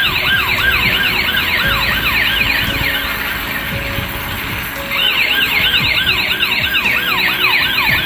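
Toy police car's electronic siren from its built-in speaker, a fast wavering yelp sweeping up and down about three or four times a second. It fades out a few seconds in and starts again about five seconds in.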